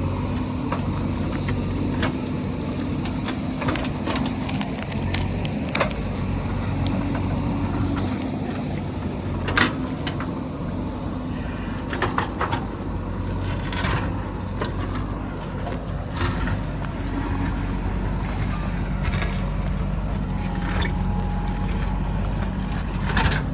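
JCB backhoe loader's diesel engine running steadily, with scattered sharp knocks and clatters over it.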